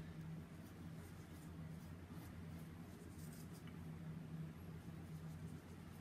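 Faint light scraping and small ticks of a silicone spatula working glaze from a glass bowl onto pastries, over a steady low hum.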